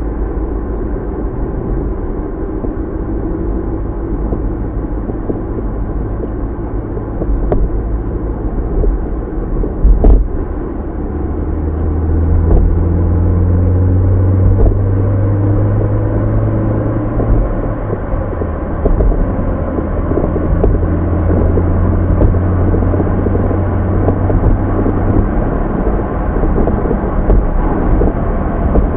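A car driving, heard through a dashcam microphone inside the cabin: a steady low rumble of engine and tyres. There is a sharp knock about ten seconds in, and a stronger low hum sets in soon after and fades about twenty-five seconds in.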